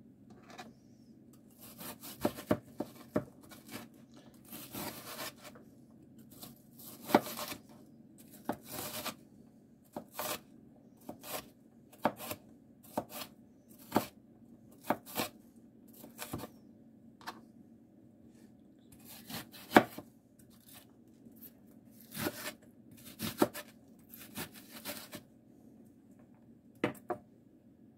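Chef's knife dicing onions on a white plastic cutting board: uneven knife strikes on the board mixed with longer slicing strokes through the onion.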